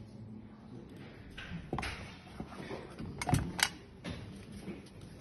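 Unboxing handling noise: a thin metal rolling tray and a foam insert being moved in and out of a cardboard box, with a few sharp clacks and knocks and rubbing in between, the loudest two knocks close together about three and a half seconds in.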